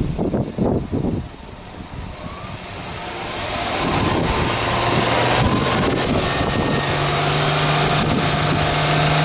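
Subaru Forester XT's turbocharged flat-four engine being revved up from about three seconds in and held at a steady raised speed, stepping up a little more about two-thirds of the way through.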